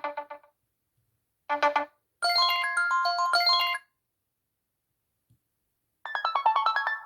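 iPhone 4 ringtones played one after another as short snippets: quick, bright electronic melodies. One dies away just after the start, a brief one is cut short, a longer one follows, and after a pause of about two seconds another begins near the end.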